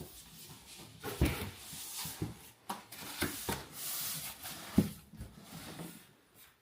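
Unpacking noises: packaging rustling and rubbing, broken by a string of knocks and thumps as boxed parts are handled and set down, the sharpest about five seconds in.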